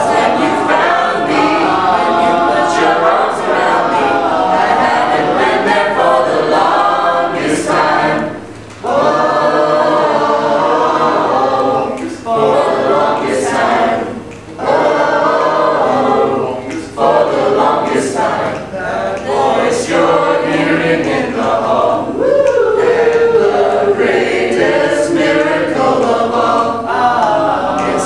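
A mixed choir of young men and women singing a cappella, with short breaks between phrases about 8 and 14 seconds in.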